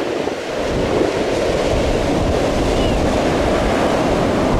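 Ocean surf breaking, a steady wash of waves, with wind rumbling on the microphone.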